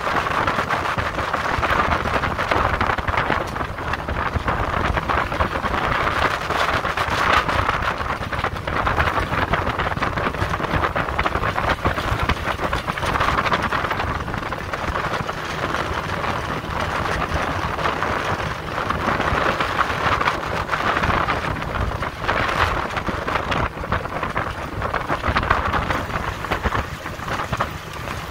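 Wind buffeting the microphone and water rushing past the hull of a small boat underway: a loud, continuous rushing with a low rumble, swelling and easing every few seconds.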